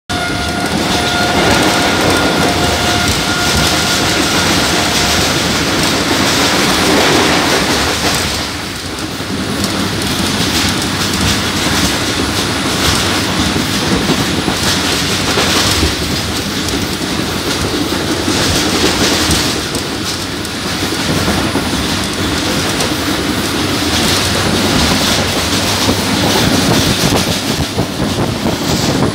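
Passenger train running at full speed, heard from an open window of a coach: a steady rush of wheel, track and air noise with the clickety-clack of wheels over rail joints. A faint steady high tone sounds through the first five seconds.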